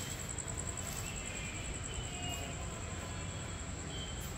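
Steady low background rumble with a thin, constant high-pitched whine over it.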